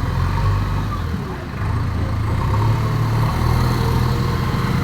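JCB backhoe loader's diesel engine running steadily under load, easing off briefly about a second and a half in, then picking up again.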